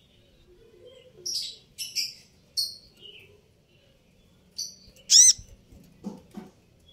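Van Hasselt's sunbird calling: a run of short, sharp, high chips, then about five seconds in a loud, ringing, arched call. Two soft thuds follow near the end.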